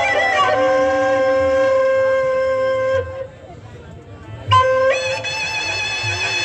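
Traditional Sasak theatre music: a high melody line held on long notes, sliding down at the start, breaking off for about a second in the middle, then returning and stepping up to a higher wavering note. Soft low drum beats run underneath.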